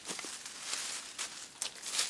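Dry leaf litter rustling and crackling underfoot and under hand as a person steps and reaches about on the forest floor, with several short crunches.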